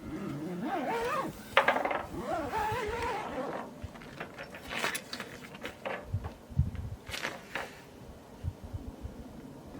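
Cutlery and dishes clinking during a meal: a few sharp, scattered clinks of utensils against bowls, with softer handling sounds between.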